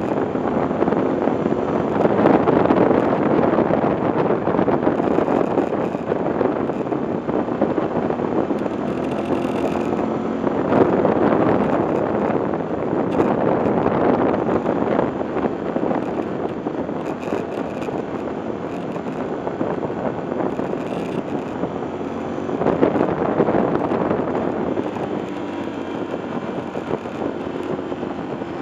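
Wind rushing and buffeting over the microphone of a motorcycle-mounted camera, with the engine running steadily underneath at cruising speed. The wind noise swells and eases several times.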